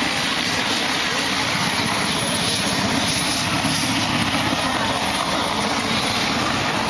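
Helicopter flying low close by: a steady rush of rotor and engine noise.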